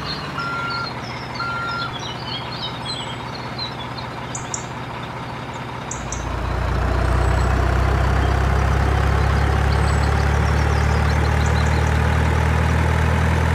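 A truck's reversing alarm beeps twice, with birds chirping. About six seconds in, a low, steady dump-truck engine hum comes in and runs on, louder than what came before.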